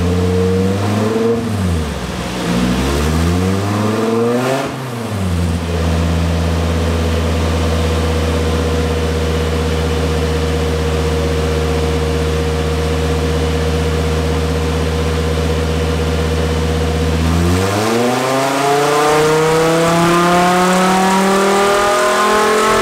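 Naturally aspirated VW 2.5-litre 07K inline five-cylinder in a swapped Porsche 944, running on a chassis dyno. The revs rise and fall a few times in the first five seconds, hold at one steady speed for about twelve seconds, then climb steadily under load near the end.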